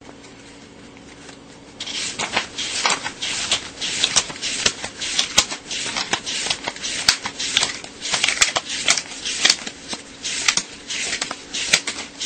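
US dollar bills being counted by hand: a folded wad held in one hand, each note flicked over with the fingers, giving a run of crisp paper flicks and rustles at about two or three a second, starting about two seconds in.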